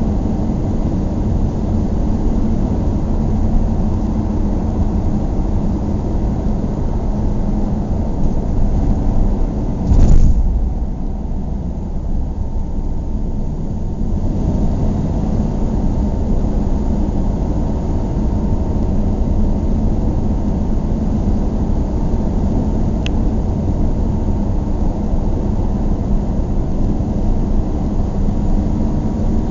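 Road and engine noise heard from inside a moving car: a steady low rumble. About a third of the way through, a single loud thump stands out above it.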